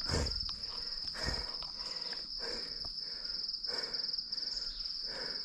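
Steady, high-pitched insect trill, finely pulsing and unbroken, with a few soft knocks, the strongest one at the very start.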